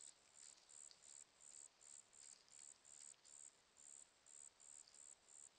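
Faint insect chirping, probably a cricket or katydid: a steady rhythm of short, high-pitched chirps, about three a second.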